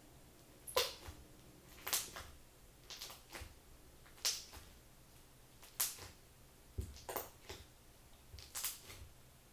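Slime being worked by hand, giving short wet clicks and pops about once a second.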